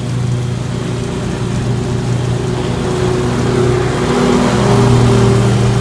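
Scag Tiger Cat II zero-turn mower running under load, engine hum with blades and bagger blower spinning and a rush of clippings. It swells a little louder about four to five seconds in.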